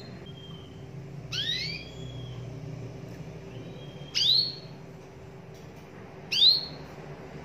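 Domestic canary giving short, sharp sweeping chirps, three of them about two seconds apart, with faint thin whistles between them, over a steady low hum.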